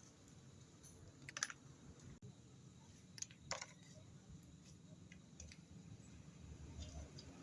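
Near silence broken by a few faint light clicks of small hard objects being handled, in two short clusters: one about a second in, the other about three and a half seconds in.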